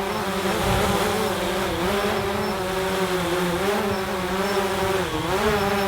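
DJI Phantom 3 Pro quadcopter hovering close by with a steady propeller buzz, its pitch wavering up and down as the motors correct against gusty wind.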